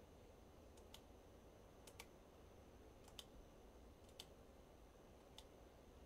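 Faint computer mouse clicks against near-silent room tone, a handful spaced about a second apart, some in quick pairs.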